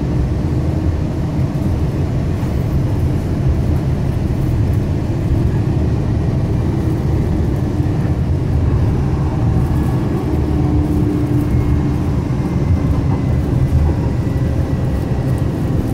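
Metro Transit light-rail car running along the track, heard from inside the car: a steady low rumble of wheels and running gear at an even level, with a faint hum coming and going about two-thirds of the way through.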